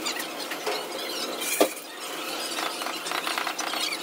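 A sharp metal clank with a short ring about halfway through, over scattered high squeaks and clicks, as a stainless-steel kitchen exhaust hood and its steel prop pole are handled.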